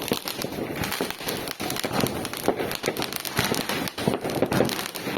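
Fireworks going off in a dense, continuous run of sharp cracks and pops, many to the second with no pause.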